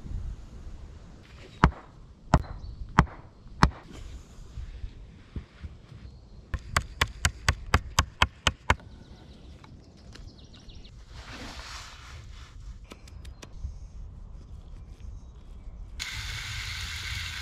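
A large knife chopping into wooden sticks: a few heavy strikes, then a quick run of about a dozen chops at roughly four a second. Near the end, vegetables sizzle as they fry in a pan over hot coals.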